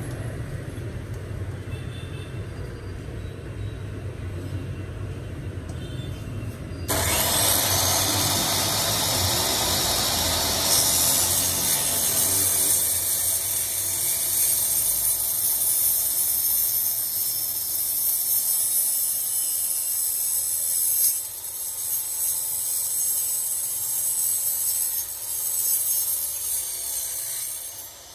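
Shindaiwa LA66 cut-off saw with a 180 mm carbide-tipped blade cutting through square steel tube. After a low motor rumble, the blade bites about seven seconds in and a loud, high-pitched cutting noise sets in, running steadily for about twenty seconds until the cut is through near the end.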